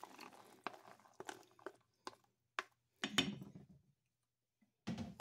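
Rinsed cannellini beans being scraped off a plastic spatula with a wooden spoon and dropped into a pot of broth: a run of soft taps and plops about every half second, then a short pause and a louder stirring sound near the end.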